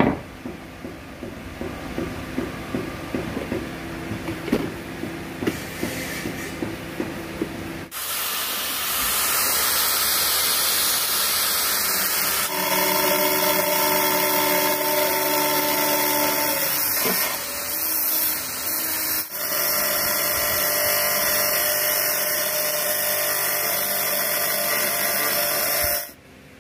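Angle grinder with a thin cut-off disc cutting through a steel rod: a loud, steady, hissing grinding sound that starts abruptly about eight seconds in and stops abruptly just before the end. Before it there are a few seconds of irregular light knocks.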